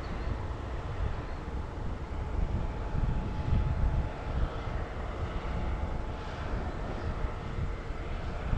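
Heavy farm machinery's diesel engine running steadily, a continuous low rumble with a faint steady hum above it.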